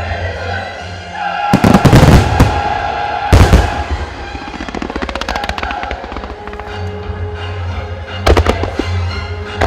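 Aerial firework shells bursting over music: two heavy booms about one and a half and three and a half seconds in, each followed by crackling, and another cluster of bursts near the end.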